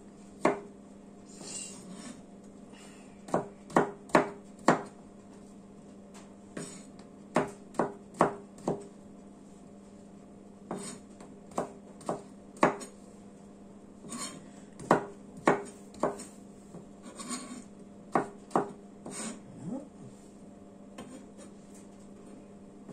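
Kitchen knife chopping peeled pear into chunks on a cutting board: irregular sharp knocks of the blade hitting the board, with a few short scrapes in between.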